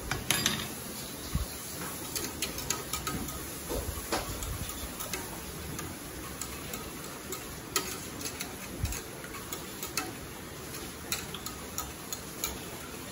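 Wire whisk stirring a sauce in a stainless steel pot, its wires clicking irregularly against the pot sides. A metal spoon is set down on a wooden cutting board about half a second in.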